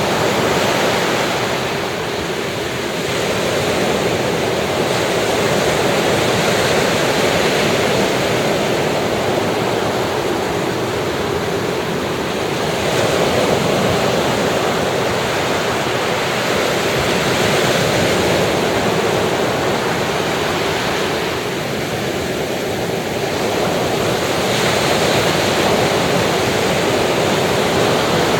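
Ocean surf washing onto a beach: a continuous rushing of waves that swells and eases every several seconds.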